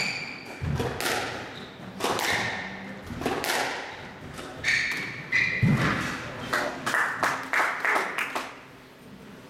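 Squash rally: the ball is struck by rackets and thuds off the walls in a run of sharp impacts, with short high squeaks of court shoes on the floor. The impacts stop about eight and a half seconds in.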